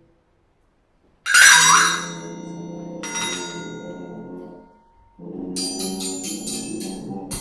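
A sudden loud bell-like strike that rings and fades over low sustained tones. About four seconds later a fast, rhythmic jingling begins over a second run of low tones.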